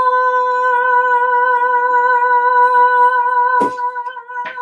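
A woman's voice sings one long, steady, high "aah" note as a celebratory fanfare while the box is opened. A single knock about three and a half seconds in, with a few small clicks after it.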